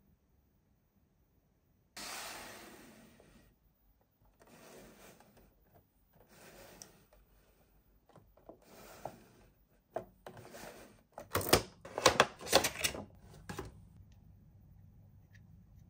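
Handling noise from toy packaging: a series of brushing, rubbing strokes every second or two, then a quick run of sharp crackles near the end, the loudest part.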